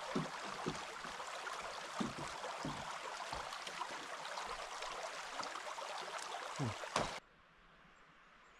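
Shallow mountain stream running over stones, with a few knocks as a hiker crosses the wooden footbridge above it. The water sound cuts off suddenly about seven seconds in, leaving near silence.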